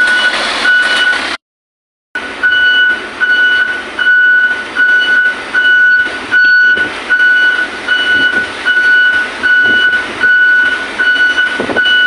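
Concrete mixer truck's reversing alarm beeping evenly, about one and a half beeps a second, over the truck's running engine as it backs up. The sound cuts out for under a second near the start.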